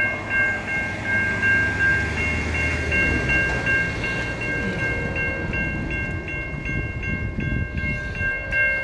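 Safetran Type 3 electronic crossing bell (E-bell) ringing at the grade crossing, about three strikes a second, over the low rumble of an approaching freight train.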